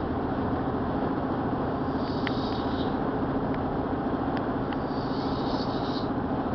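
A man snoring: a continuous low rattle, with a hiss of breath every few seconds.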